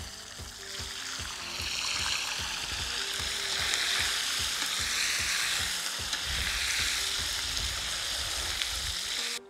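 Pieces of raw duck frying in hot oil in a cast-iron kazan: a steady sizzle that swells about a second in as the meat goes into the oil. The pieces are stirred with a metal skimmer, with short knocks under the sizzle.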